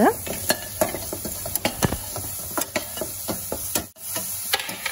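A spatula stirring onions, curry leaves and dal frying in oil in a stainless steel kadai: irregular clicks and scrapes of the spatula against the pan over a steady sizzle. The sound drops out for an instant about four seconds in.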